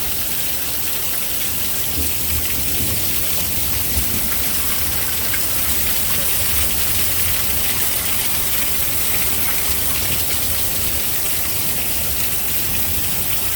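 Heavy thunderstorm rain pouring down: a loud, steady, dense hiss with a low rumble underneath.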